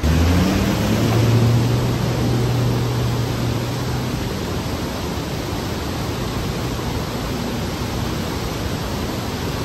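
Steady roar of a mountain torrent falling down a rocky waterfall. Under it, in the first few seconds, the hum of a Toyota Land Cruiser HZJ75's diesel engine, rising briefly in pitch at the start, then fading into the water noise.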